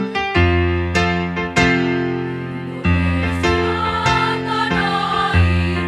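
Electric keyboard playing piano chords, with a women's choir coming in about halfway through.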